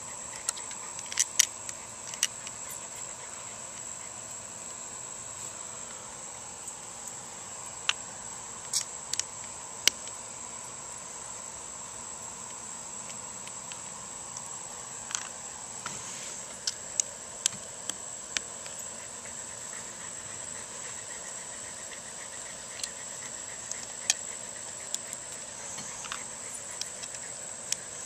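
Small sharp clicks and taps at irregular intervals from a hex key and its screws as the screws are worked out of a TacStar side saddle's plastic shell holder on a Mossberg 500 shotgun. Under the clicks runs a steady, high-pitched insect drone.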